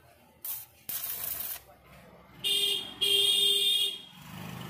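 Stick arc welding on a stainless steel railing tube: the arc hisses and crackles in two short bursts within the first second and a half. Then a loud pitched tone sounds twice, the second time longer.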